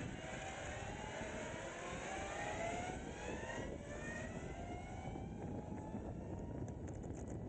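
Energica EsseEsse9 electric motorcycle's motor whining, the whine rising in pitch in a few successive sweeps as the bike picks up speed, over a steady low rush.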